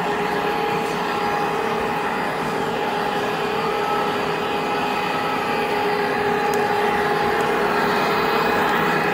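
Model trains running on a large layout: a steady whirring hum with a few held tones.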